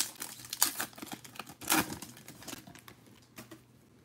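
Foil trading-card pack torn open and crinkled by hand: a run of sharp crackles over the first two and a half seconds, then only a few faint clicks.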